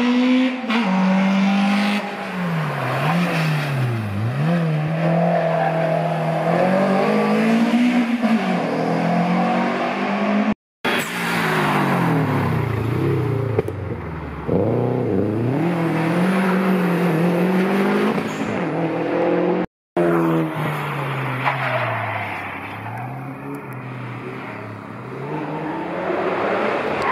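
Hillclimb competition cars accelerating hard up the course, engine revs climbing and dropping again and again through gear changes. It is three separate car passes, broken by two abrupt cuts about eleven and twenty seconds in.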